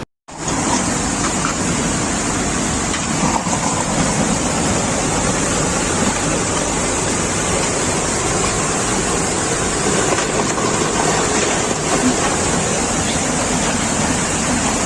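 Floodwater rushing past: a loud, steady rush of noise that starts right after a brief dropout at the very start and holds evenly throughout.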